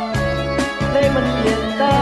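Backing music of a Thai pop song with a steady beat of about two drum strikes a second, a bass line and held melody notes.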